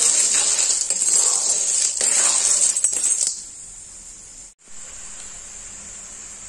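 Snail shells clattering and clinking against a metal wok as they are stirred, for about three seconds, then only a steady high hiss.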